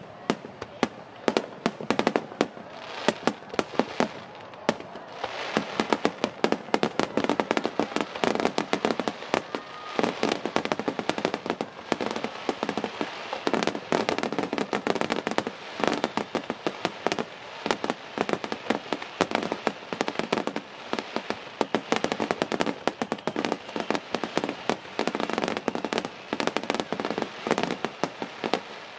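Aerial firework shells bursting in a dense, rapid barrage: many sharp bangs in quick succession over a continuous crackle of burning stars.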